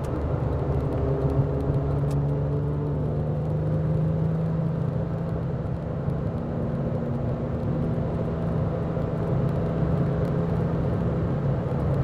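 Porsche 996 GT2's twin-turbo flat-six heard from inside the cabin at motorway cruise. It holds a steady drone with only small shifts in pitch, over a constant rush of tyre and road noise.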